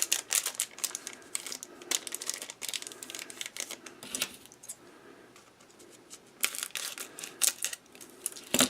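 Foil trading-card pack wrappers crinkling and cards being handled, in bursts of quick rustles and clicks.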